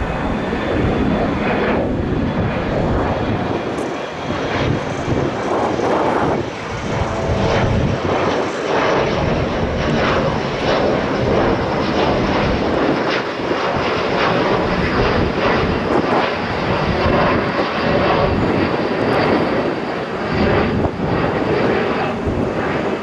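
An Amtrak GE P42DC Genesis diesel locomotive hauling a passenger train as it approaches, its engine running loud and steady. From about a third of the way in, repeated clacks sound as the wheels roll over rail joints and switches.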